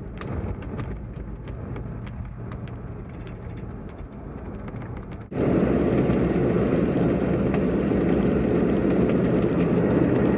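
Road and engine noise of a moving vehicle heard from inside, with small rattles. About five seconds in it jumps louder and fuller, heard from the back of a pickup truck on the road.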